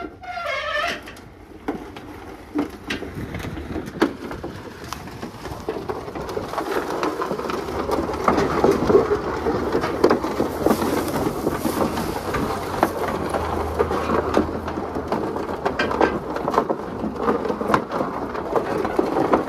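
A pickup being dragged out on tow straps by a Ford 5.0 Coyote V8 truck. The engine pulls under load while the three-wheeled truck crunches and scrapes over the ground with many small knocks. The noise builds over the first several seconds, then holds steady.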